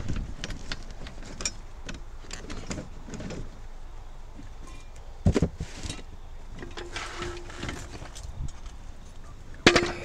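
Tools and gear knocking and rattling as they are dug out of a vehicle's cluttered storage compartment, with a heavier knock about five seconds in. Near the end comes a loud metal clank with a short ring as a steel floor jack is handled.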